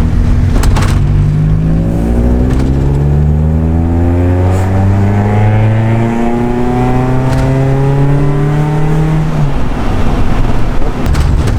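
The car's 1.8-litre 16-valve naturally aspirated four-cylinder engine is accelerating hard under load, its pitch climbing steadily. About six seconds in there is a gear change, after which it pulls up through the revs again, then eases off about nine and a half seconds in.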